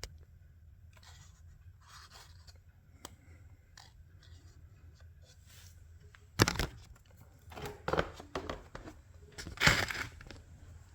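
Handling noises of parts and tools: a sudden sharp knock about six seconds in, then a cluster of scraping, rattling knocks, the loudest near the end.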